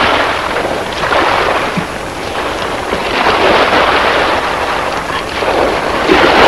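Rushing wind-and-sea noise on the open deck of a boat, an even hiss that rises and falls in strength.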